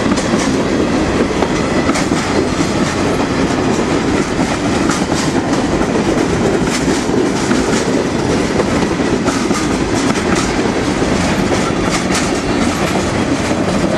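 Freight cars of a long CSX mixed freight train rolling past close up. The wheels make a steady loud rumble with frequent clacks over the rail joints.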